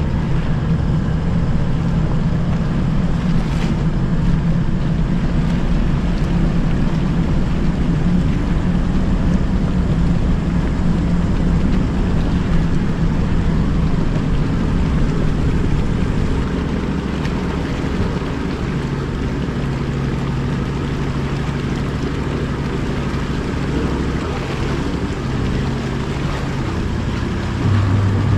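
Toyota LandCruiser 76 Series engine running steadily under load as the four-wheel drive tows its trailer through a shallow river crossing, the engine note shifting a few times along the way.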